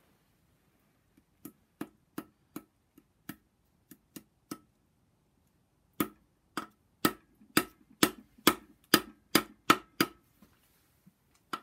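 A small hammer tapping the oil pump's locating dowel pins into a BMW N54 engine block. Light taps come first, then from about six seconds in, harder metal-on-metal strikes come about two a second, each with a short ring.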